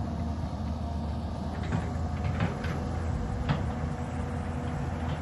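Diesel excavator engine running steadily under digging work, with a few sharp clanks from about one and a half to three and a half seconds in.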